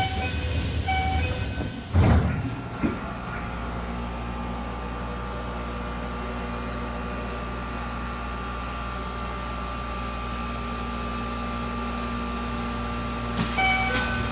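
Keisei 3050-series commuter train standing at a station, heard from inside the car. A short multi-tone door chime sounds, the sliding doors shut or open with a loud thud about two seconds in, then the stopped car's steady electrical hum runs on. The chime sounds again near the end.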